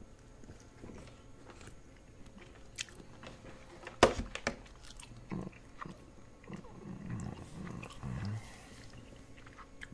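A person biting and chewing a mouthful of baked chicken close to the microphone, with a sharp knock about four seconds in.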